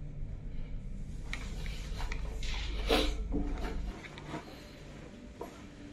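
Footsteps and light knocks on wooden stairs over the low rumble of a handheld phone being carried. About four seconds in it goes quieter, leaving only a few faint clicks.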